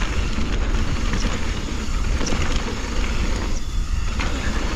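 Mountain bike descending a dirt trail at speed: steady wind rumble on the camera's microphone over tyre and trail noise, with a few light knocks from the bike. The noise eases briefly about three and a half seconds in.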